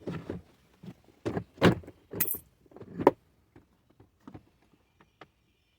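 Plastic door trim panel being lifted off a car door, giving a series of sharp plastic clicks and knocks. These are loudest over the first three seconds, then turn into lighter ticks.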